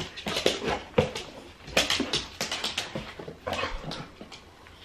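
Dog whimpering in a series of short, irregular whines, quieter near the end.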